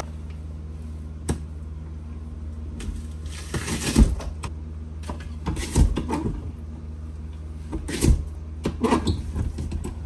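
Wall-mounted lever-action vegetable cutter pressing chunks of bell pepper through its blade grid into a stainless steel bowl: a string of sharp metal clunks and knocks a second or two apart, over a steady low hum.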